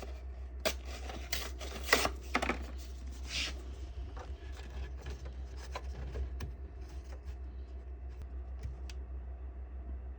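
Small clicks, taps and short scrapes of hand work with tools and materials, busiest in the first few seconds and then sparse faint ticks, over a steady low hum.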